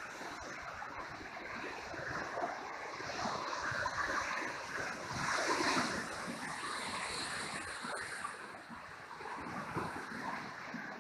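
Niagara River white-water rapids rushing, a steady churning roar of water that swells a little midway.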